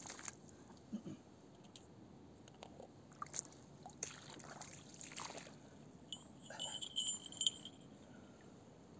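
Faint footsteps and scuffs on a wet, muddy riverbank, with scattered small clicks of handling. A brief high-pitched squeak comes about seven seconds in.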